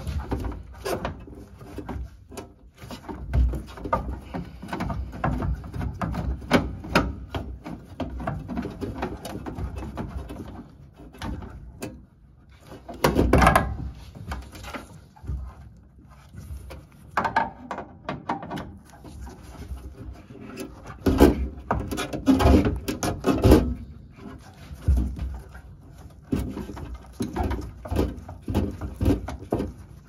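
Irregular knocks, clicks and rubbing as furnace parts and a flexible hose are handled and fitted inside the cabinet, with louder clusters of knocks about halfway through and again a little later.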